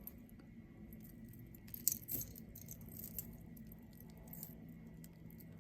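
Silver-tone costume jewelry statement necklace being handled, its pieces clinking and jangling softly, with a couple of louder clinks about two seconds in.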